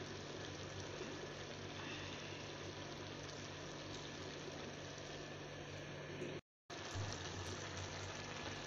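A steady low hum with an even hiss over it, cutting out for a moment about six and a half seconds in.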